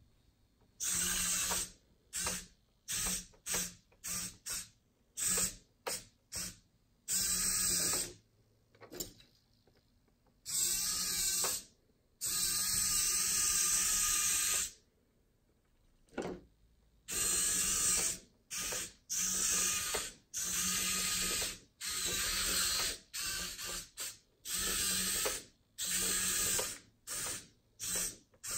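Small plastic-geared SG90 continuous-rotation micro servos whirring in many stop-start bursts as the 3D-printed mini track loader drives its tracks; most bursts are short, a few run about two seconds.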